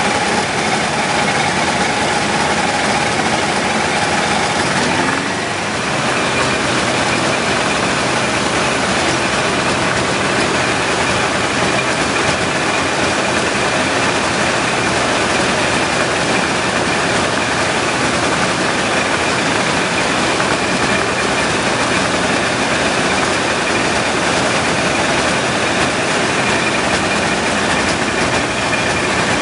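Rans Coyote ultralight's engine and propeller running steadily with wind noise, heard inside the cockpit on the approach to land. About five seconds in, the level dips briefly and a steady tone in the engine sound drops out.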